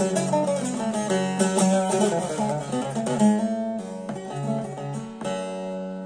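Bağlama (saz), a long-necked Turkish lute, played solo with quick picked notes. About four seconds in the notes slow down, and a final strum about five seconds in is left ringing to close the tune.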